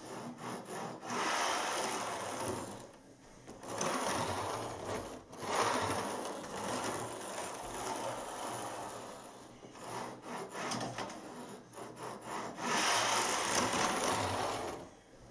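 Model train running round the track on a test run, its wheels and motor rattling on the rails. It swells and fades several times as it goes round the circuit, and is loudest near the end as the coaches pass close by.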